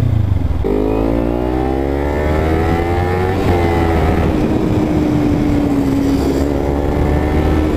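Kawasaki Ninja 300 parallel-twin engine pulling hard, its pitch climbing steadily for about three seconds. After a brief break about three and a half seconds in, it runs on at a steady pitch while cruising, over a constant low rumble.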